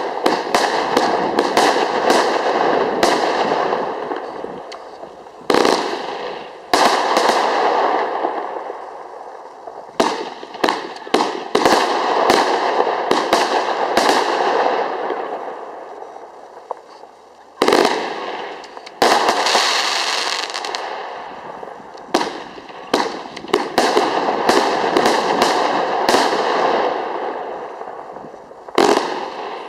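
Mc-Boden 'Elite' fireworks firing a long run of shots: sharp bangs come in quick volleys, each trailed by a fading crackle of bursting stars, with short lulls between volleys.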